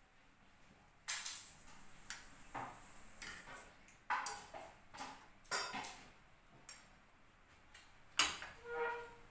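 Metal serving spoon scraping and knocking against a steel wok while scooping food out of it: a string of separate scrapes and clinks, roughly one a second, with a short ringing clink near the end.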